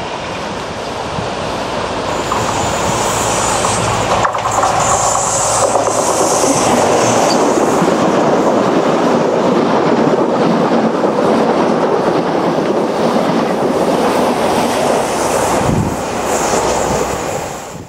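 Diesel multiple unit passing close by: steady wheel-on-rail and engine noise that builds over the first few seconds, with a high wheel squeal at times.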